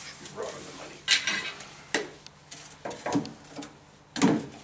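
PVC pipe and a hacksaw being handled: a series of irregular sharp clattering knocks, the loudest about a second in and near the end, as the saw is put to the pipe and begins cutting.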